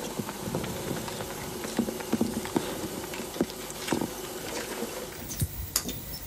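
Outdoor field sound of scattered small taps and rustling over a faint steady hum, with a few sharp clicks near the end.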